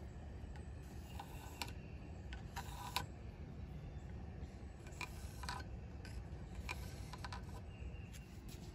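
Carpenter's pencil scratching along an oak handle blank as it traces around a hatchet handle, with the small clicks and knocks of the handle and pencil being shifted. The sounds come as a few short scratches and clicks, the loudest about three seconds in, over a steady low background noise.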